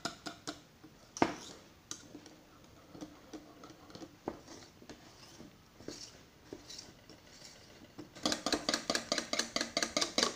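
Wire whisk beating egg and coconut-flour pancake batter in a plastic bowl, the wires clicking against the bowl. Scattered, lighter taps at first, then about eight seconds in a fast, steady run of clicks, about six a second, as the whisking speeds up.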